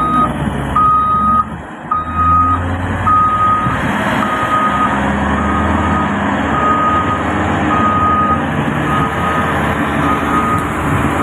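Reversing alarm beeping steadily, about one beep a second, over the low running of a diesel engine: a Cat 745 articulated dump truck backing up.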